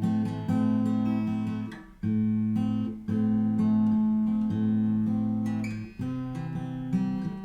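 Yamaha FG850 all-mahogany dreadnought acoustic guitar being played: chords struck and left to ring, changing every second or so.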